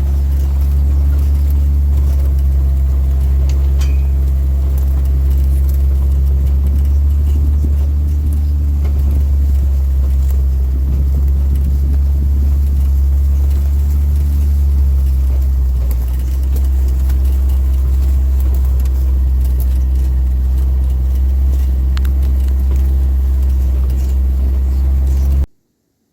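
A vehicle engine running steadily with a deep rumble, heard from on board; it cuts off suddenly near the end.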